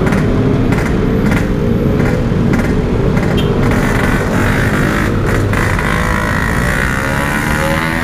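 Yamaha RX-King's 135 cc single-cylinder two-stroke engine running at low speed through its stock-pattern muffler, rising in pitch near the end as the bike accelerates.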